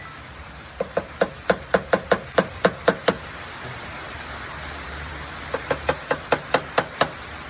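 Quick sharp knocks on wood, about five a second: a run of about a dozen, a pause, then a second run of about eight.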